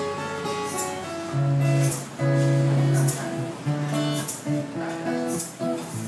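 Acoustic guitar played on its own in an instrumental break between sung verses: strummed chords, with held low bass notes and a picked melody over them.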